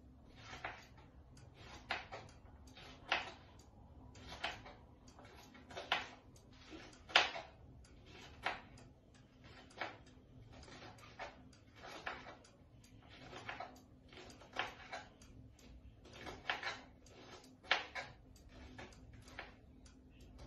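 Kitchen knife slicing whole fava bean pods thinly on a plastic cutting board, each cut ending in a sharp knock of the blade on the board, about one every second or so with softer taps between.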